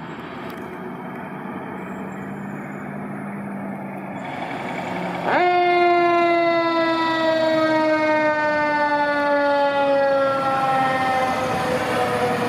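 A fire engine approaching, its road noise growing louder. About five seconds in, its siren starts abruptly and loud, and its pitch then falls slowly and steadily.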